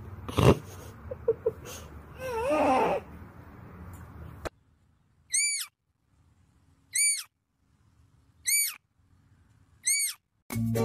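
A deer fawn calling four times, about a second and a half apart: short, high-pitched bleats that rise and fall. Before them come a sharp knock and a wavering vocal sound.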